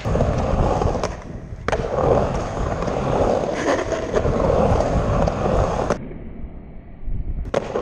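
Skateboard wheels rolling across a vert ramp, a steady rumble as the rider carves the transitions. About six seconds in it drops to a duller, quieter rumble for a second and a half, then comes back.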